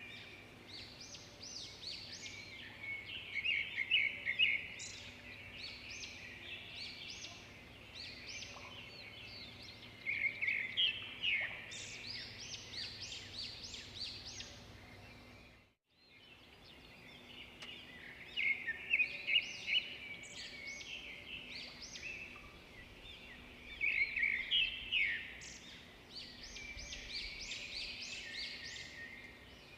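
Small birds chirping and twittering in repeated bursts, with the sound cutting out completely for a moment about halfway through.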